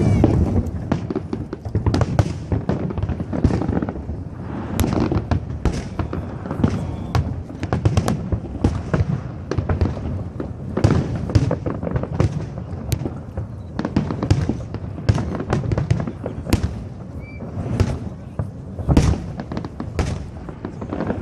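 Fireworks display: a dense, unbroken run of sharp cracks and bangs with deeper booms among them.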